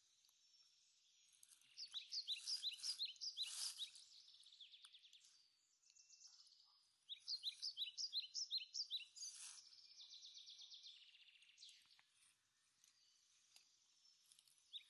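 A songbird singing: two phrases of rapid, repeated chirps, each about two seconds long, with fainter twittering between them.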